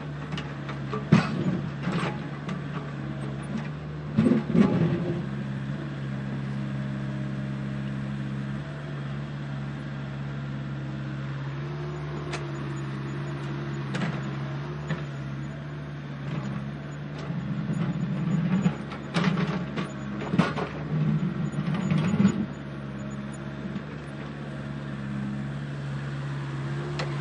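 Small electric motor and hydraulic pump of a radio-controlled model construction machine, running with a steady hum. Scattered knocks and clatter, busiest a few seconds after the middle, come from the machine working gravel.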